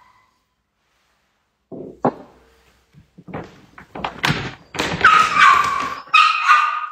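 Silence, then a run of sharp knocks and thuds of hard objects, with a dog whining twice near the end.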